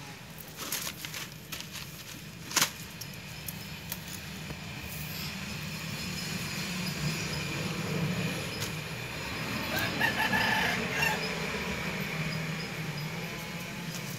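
Wire-mesh cage traps rattling and clinking as they are handled and set, with one sharp metal clank about two and a half seconds in. A rooster crows in the background about ten seconds in.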